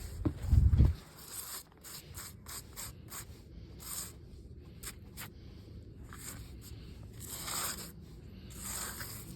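Irregular scraping and rubbing strokes from weeds being worked out of the gaps between deck boards, with a heavy low thump just under a second in.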